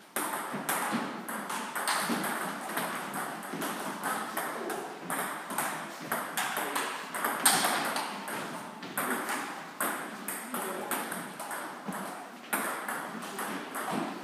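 Table tennis balls clicking off bats and tables in rallies at several tables at once: an irregular stream of sharp clicks, often overlapping.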